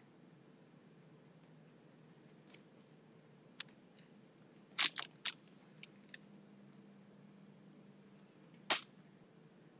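Scattered sharp taps and clicks, about seven in all, the loudest a quick cluster of three about five seconds in and a single sharp one near the end, over a faint steady room hum.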